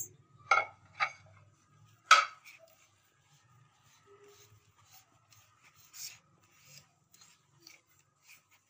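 A hand squishing and rubbing a mashed potato and chicken kabab mixture in a plastic bowl, with three short knocks in the first two seconds, the third the loudest.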